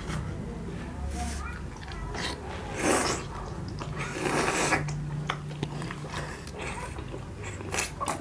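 People chewing and biting chicken momo dumplings eaten without hands, with wet mouth sounds and two longer noisy sucking sounds about three and four seconds in.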